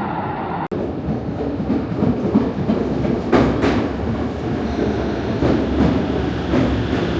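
A Tokyo commuter or subway train running, with a steady rumble and a few clacks from the wheels passing over rail joints. The sound cuts out for an instant just under a second in.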